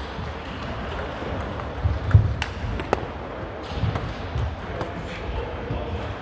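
A table tennis ball clicking sharply off bats and the table in a short exchange, a few quick hits about two to three seconds in. Low thuds of the players' feet come with the hits, and fainter clicks follow.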